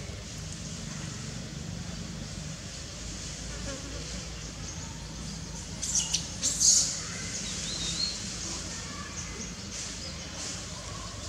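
A fly buzzing steadily close by over faint forest background noise, with a few short, sharp crackles about six seconds in.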